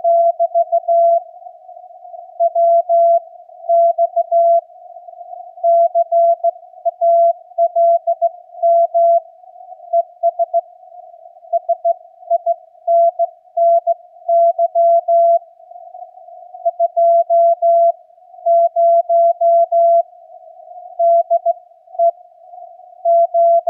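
Slow Morse code (CW) received on a Yaesu FTDX10 HF transceiver at about 15 words per minute: a single steady tone keyed on and off in dots and dashes, over a narrow band of receiver hiss.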